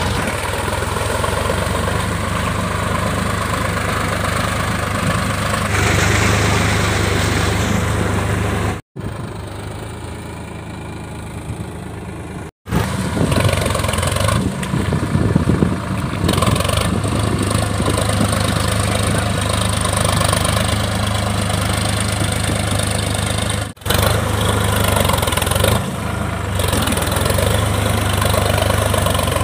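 Sonalika diesel tractor engine running steadily under load as it pulls a tined cultivator through wet paddy mud on steel cage wheels. The sound cuts off abruptly a few times, with a quieter stretch of a few seconds about a third of the way in.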